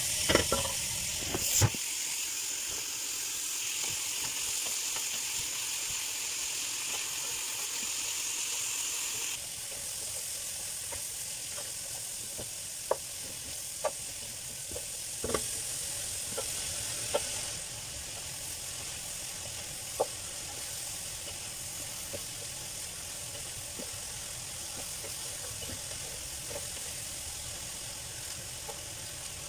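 Julienned carrots and onions sizzling as they sauté in a pan, a steady hiss that drops a little a third of the way in and again about halfway. A wooden spatula stirring and now and then tapping sharply against the pan.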